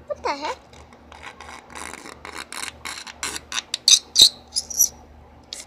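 Something being rubbed and scraped by hand against a hard tabletop in quick, short rasping strokes, several a second, loudest about four seconds in, with a short squeak at the very start. It is a deliberately cringe-making noise.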